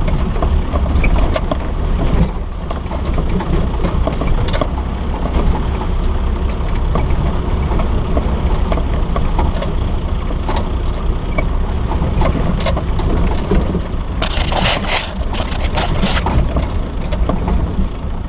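A 4x4 driving slowly along a rough stony track, with a steady low engine and drivetrain rumble and the noise of tyres on gravel. A louder burst of noise comes about fourteen seconds in and lasts a couple of seconds.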